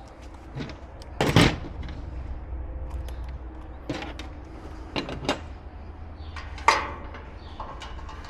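Scattered knocks and clatters of gas grill parts being handled and fitted during assembly, with a short clatter about a second in and a sharp knock near the end, over a low steady hum.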